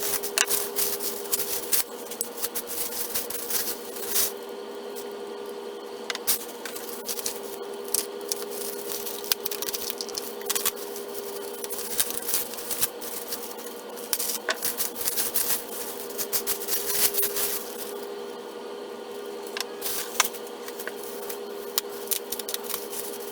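Small packages of doll armor being unwrapped by hand: rustling and crinkling wrapping with many short scattered clicks, over a steady hum.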